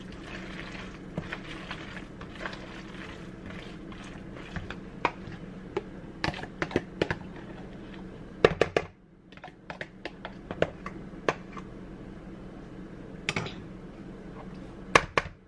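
Plastic spoon stirring and scraping pasta in a plastic mixing bowl, with irregular clicks and taps of spoon and sauce container against the bowl, the loudest about eight and a half seconds in. A steady low hum runs underneath.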